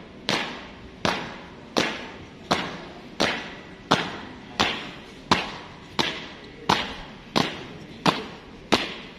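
Three marchers' shoes stamping on a hard court in unison, a steady stamp about every 0.7 seconds.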